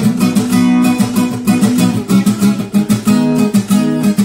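Background music: a strummed guitar playing a steady rhythm.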